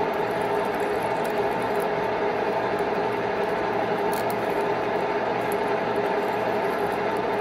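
A 1616 metal lathe running steadily with a constant whine while a twist drill in the tailstock bores into the spinning chuck backplate blank, with faint scratchy ticks from the chip curling off the drill.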